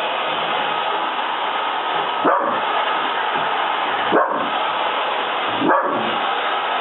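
Vacuum cleaner motor running steadily while a dachshund barks at it three times, about two seconds apart.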